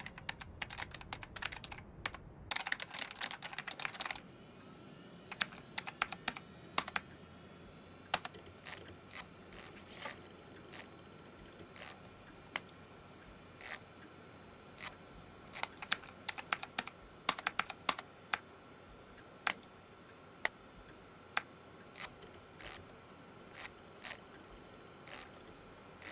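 Typing on a computer keyboard: a quick run of keystrokes for the first few seconds, then scattered, irregular key clicks.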